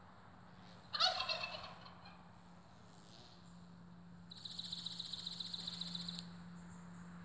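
A turkey gobbling once, about a second in: one loud, sudden call that fades over about a second. Past the middle, an insect's high, rapidly pulsing buzz runs for about two seconds and cuts off suddenly.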